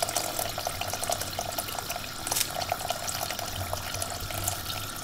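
Water poured in a steady stream from a kettle into an aluminium pot of browned lamb, splashing onto the meat: the water going in to start the broth.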